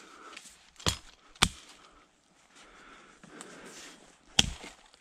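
Hatchet chopping dry lower branches off young conifer trunks: three sharp cracking strokes, about a second in, half a second later, and near the end.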